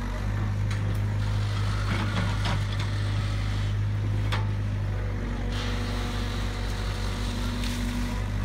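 Tracked excavator's diesel engine running steadily under hydraulic load as the boom lowers the bucket into a muddy ditch and lifts it out, working a little harder for the first few seconds. A few sharp knocks and clanks of the bucket and linkage.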